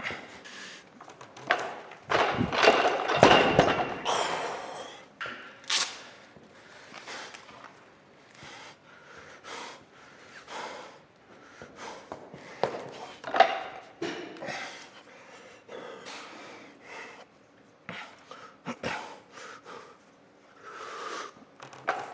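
A weightlifter breathing hard in short, forceful breaths while setting up for a maximal lift, loudest a couple of seconds in, then coming every second or two.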